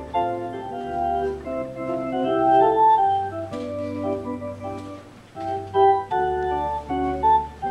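Organ playing a slow tune: a moving melody and chords held over long, sustained bass notes.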